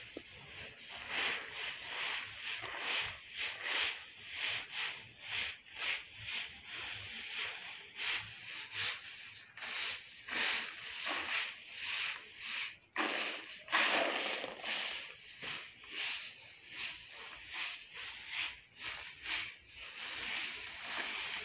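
Hands scooping and turning a heap of freshly treated seed on a plastic sheet, mixing the treatment through it: a run of rustling, hissing strokes of grain sliding over plastic, roughly two a second, with one louder scoop about two-thirds of the way in.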